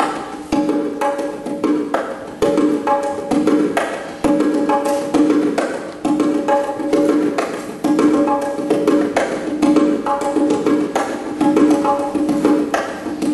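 A pair of 7-inch and 9-inch bongos played by hand in a steady, continuous rhythmic pattern: a stream of sharp open tones and slaps that ring at two pitches.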